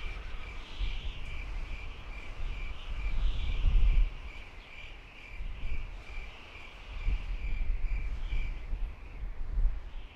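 Outdoor nature ambience: a steady high chirp repeating about three times a second, stopping shortly before the end, over a low rumble that rises and falls.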